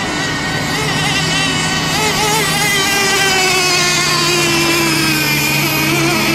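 Several radio-controlled race boats' small high-revving engines buzzing together, their pitches wavering up and down, one note slowly falling through the middle.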